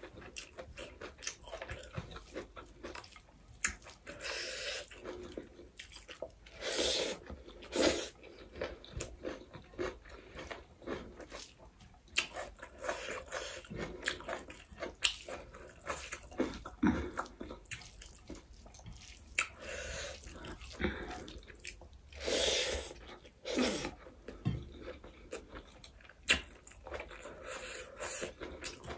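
Close-up chewing and wet mouth sounds of someone eating rice with chicken gravy and greens by hand: many small clicks, with a few louder bursts now and then.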